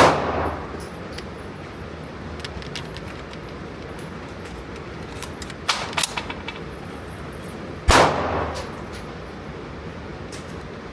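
Two single shots from an AR-15-style rifle, about eight seconds apart, each with a short ringing tail. A quick run of lighter, sharp cracks comes shortly before the second shot.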